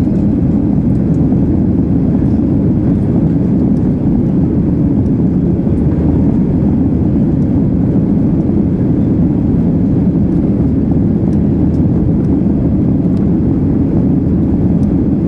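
Steady, loud rumble of a Ryanair Boeing 737's jet engines and rushing air, heard from inside the cabin.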